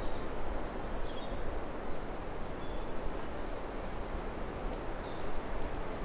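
Forest ambience: a steady rushing noise with faint, short, high bird chirps scattered through it.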